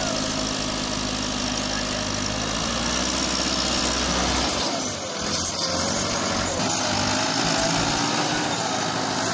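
Massey Ferguson 385 tractor's four-cylinder diesel engine labouring hard under a load heavy enough to lift its front wheels, as it pulls a fully loaded wood trolley. The deepest part of the engine sound drops away about halfway through.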